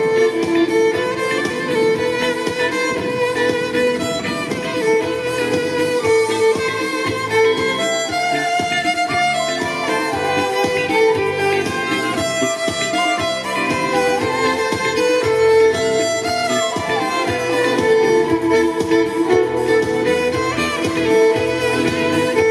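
Violin playing a continuous melody, amplified through a loudspeaker on a stand, over a recorded backing accompaniment.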